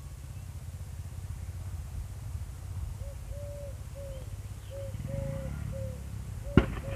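Steady low rumble, joined from about three seconds in by a short tone repeating roughly every half second, with one sharp click near the end.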